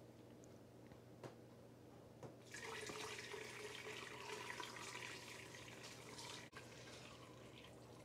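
Beef broth pouring from a roasting pan through a mesh strainer into a stainless steel stockpot: a faint, steady splashing stream that starts about two and a half seconds in and keeps running.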